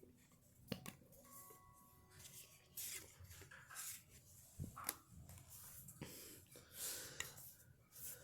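Faint rustling and light clicks of trading cards being handled and shuffled through by hand, with a few short rustling bursts scattered through it.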